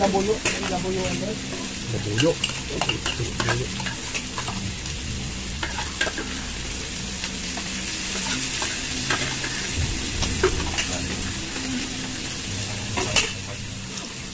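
Pork belly sizzling steadily in a tabletop grill pan, with scattered clicks of chopsticks and tongs against the pan and plates, the sharpest near the end.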